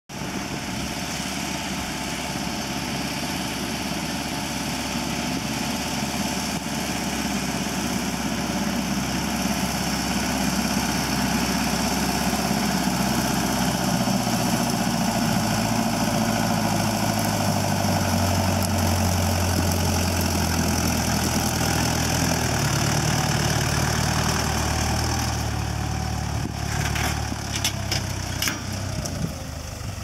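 Farm tractor's diesel engine running as it pulls a loaded manure spreader, growing louder as it approaches. Several sharp clanks come near the end.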